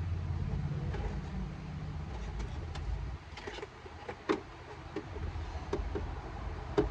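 Scattered sharp metal clicks and knocks as a long screw is turned out with a bit held in locking pliers, over a steady low hum that fades about halfway through.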